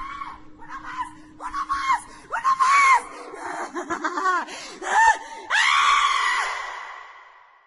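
A person screaming: a run of short, high shrieks that rise and fall in pitch, then one long scream that fades away near the end.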